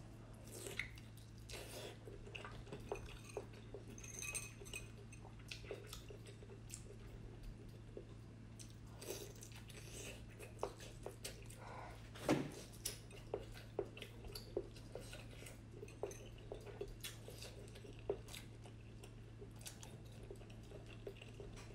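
A person biting and chewing braised pork in chili sauce: irregular mouth clicks and smacks, one louder bite about twelve seconds in, over a steady low hum.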